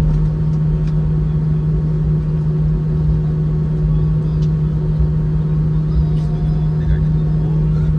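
Inside the cabin of an Airbus A319 taxiing, its IAE V2500 engines at idle: a steady low hum over a rumble.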